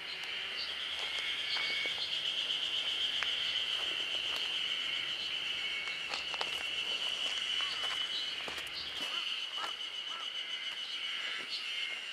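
Steady high-pitched insect chorus droning without a break, with a few short chirps over it.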